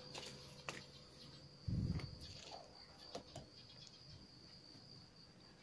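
Steady high insect chirping, like crickets. A dull thump comes about two seconds in, with a few light clicks.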